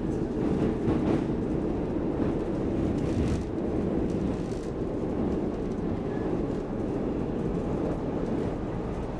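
Running noise of an SL X10 electric commuter train heard from inside the car: a steady low rumble of wheels on rails, with a few faint clicks.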